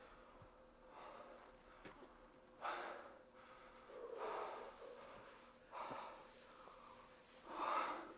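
A man breathing heavily and gasping, out of breath: four loud, rough breaths about a second and a half apart.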